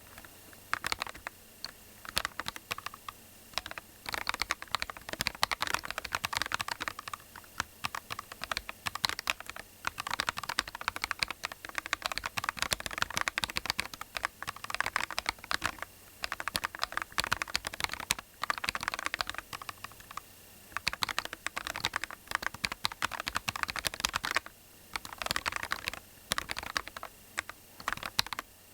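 Typing on a cocot38mini keyboard in its integrated-mount build: fast runs of key clacks, broken by several brief pauses.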